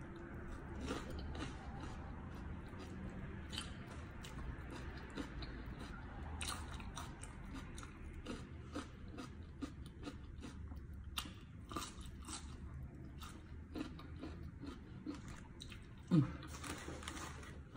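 A person chewing and crunching raw shallot and vegetables dipped in fish chili dip, close to the microphone, with many small crisp crunches. About sixteen seconds in there is a brief louder low sound that falls in pitch.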